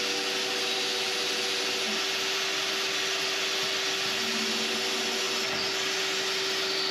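Vacuum cleaner running steadily, a steady rushing noise with a constant motor hum, as its nozzle is worked along the sink edge of a concrete countertop.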